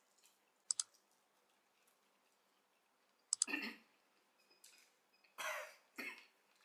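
Men eating chicken coated in Carolina Reaper chili make a few sharp mouth clicks, then three short coughs, one about three seconds in and two near the end, as the chili's heat hits.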